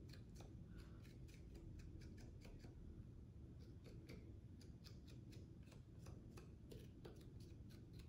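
A small serrated scoring rib scratching the edge of a soft clay slab pot: faint, quick, irregular scratches, a few a second, roughening the surface so that a slipped joint will hold.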